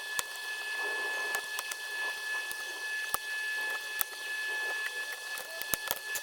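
Scattered light clicks and taps from tools and plastic parts while a Lenovo laptop is being taken apart, with a quick run of clicks near the end, over a steady high-pitched whine.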